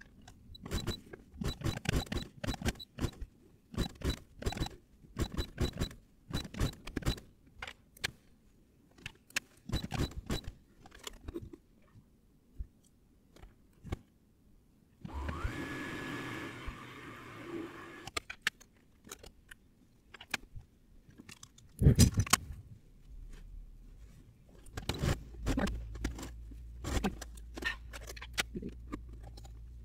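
Handling noises played at ten times speed: dense runs of sharp clicks, taps and scrapes, a few seconds of rustling partway through, a single loud knock, and a low steady hum in the last seconds.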